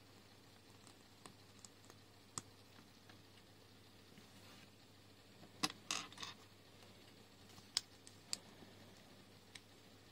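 Small plastic LEGO pieces clicking and tapping as they are handled and fitted together, with a quick cluster of louder clicks about six seconds in and a few single clicks around it.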